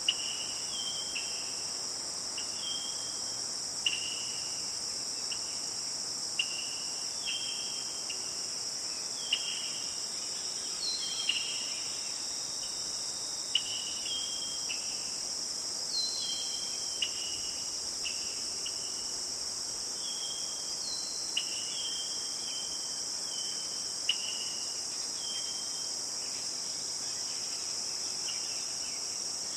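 Steady high-pitched chorus of insects, with a bird repeating short, downward-sliding chirps about once a second.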